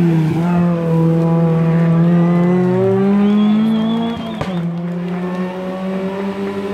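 Rally car engine revving hard as the car accelerates out of a hairpin, its note climbing for about four seconds. A brief high squeal and a sharp crack follow, then the pitch drops at a gear change and the engine carries on at a steady, lower note.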